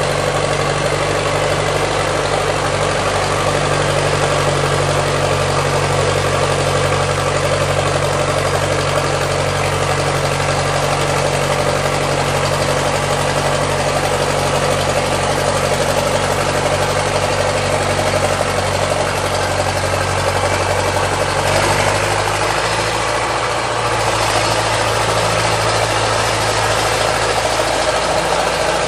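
Backhoe engine running steadily with a low drone, its pitch shifting about twenty seconds in.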